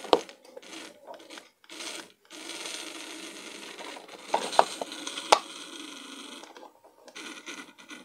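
Small electric drive motor and plastic gearbox of a toy RC monster truck running for about four seconds during a test after re-soldering its wires, on a battery the repairer says is a bit low. A few sharp plastic clicks come from handling the chassis.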